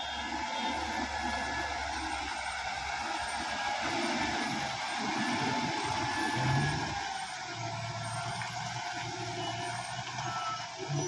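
Tata twelve-wheeler truck's diesel engine running steadily as the truck slowly takes a tight hairpin turn, with a faint wavering whine above the engine drone.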